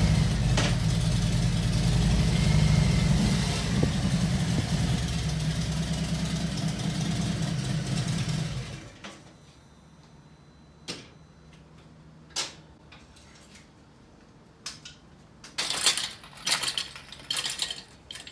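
Harley-Davidson touring motorcycle's V-twin engine running at idle just after starting, then switched off about nine seconds in. A few short knocks and clatters follow.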